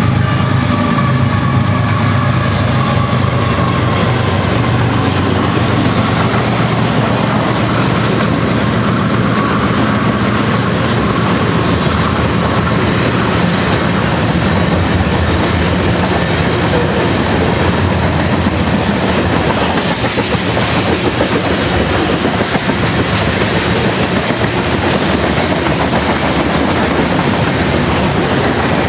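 Freight train passing close by. The BNSF diesel locomotives' engines run past in the first few seconds, then a long string of freight cars rolls by with steady wheel-on-rail noise.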